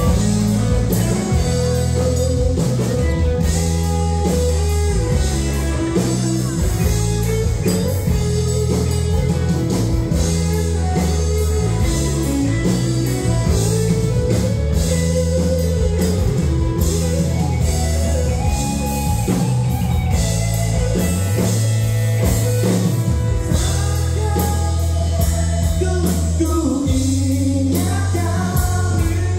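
Live pop-rock band playing a song through the hall's PA speakers, with a lead vocal over electric guitars, bass and a steady beat.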